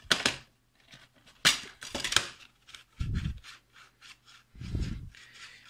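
Plastic disc case being handled: a few short scrapes and clicks, then two dull low thumps about three and five seconds in, as a disc is pressed off the case's centre hub.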